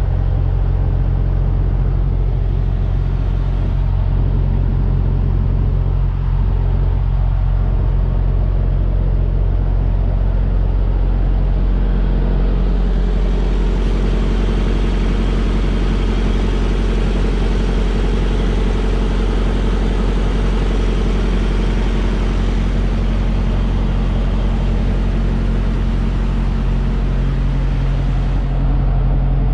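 Heavy truck's diesel engine idling with a steady low hum. From about twelve seconds in a louder, hissier noise joins it and drops away again just before the end.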